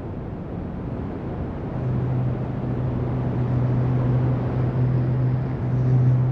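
Live electronic noise music: a dense, low rumbling noise, joined about two seconds in by a steady low drone.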